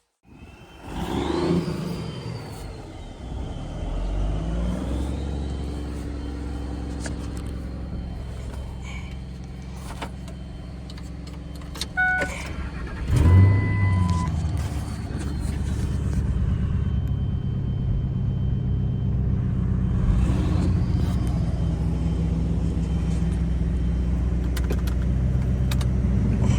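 A 2002 Ford F250 Super Duty's Triton gas engine starts and settles into a steady idle. Short electronic beeps and a brief louder moment come about twelve to fourteen seconds in.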